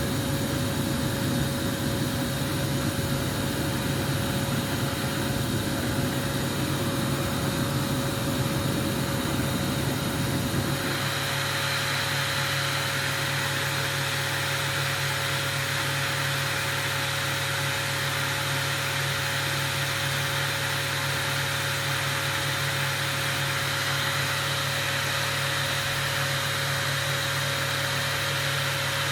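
Steady machine noise with a constant hum underneath. About eleven seconds in, the low rumble drops away and a higher hiss takes over, as if the equipment was adjusted or switched.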